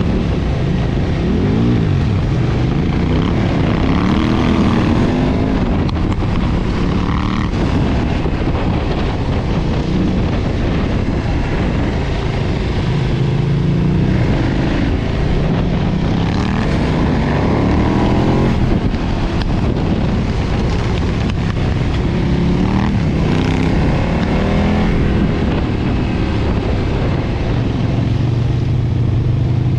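2013 KTM 990's LC8 V-twin on its stock exhaust, riding through corners: the engine note climbs and falls back again and again as the rider opens and closes the throttle and shifts gears.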